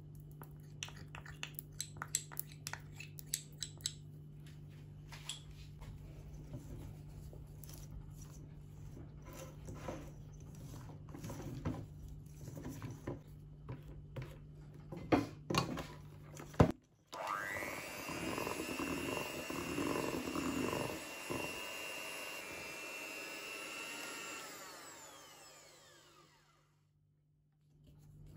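Electric hand mixer beating thick cake batter in a stainless steel bowl: a steady motor hum, with the beaters clicking and knocking against the metal bowl and a few sharp knocks about two-thirds of the way in. After a brief break the mixer starts again, rising quickly in pitch, runs steadily for several seconds, then is switched off and winds down.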